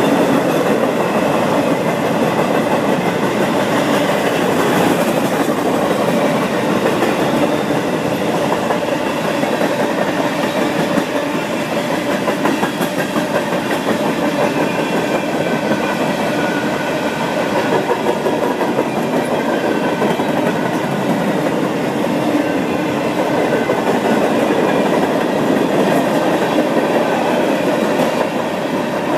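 Freight cars (boxcars, covered hoppers and tank cars) rolling steadily past on the track: the continuous noise of steel wheels running on the rails.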